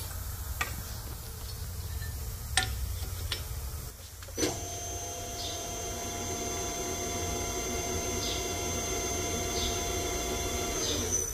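Powered rotary draw tube bender bending square steel tubing: a few metal clicks as the tube and die are set, then about four seconds in the bender's motor starts and runs with a steady hum and a thin high whine for about six and a half seconds, stopping near the end.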